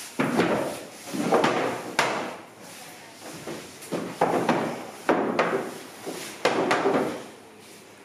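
A series of knocks and scrapes, about eight of them, each starting suddenly and fading within about half a second, like something hard being slid and set down again and again.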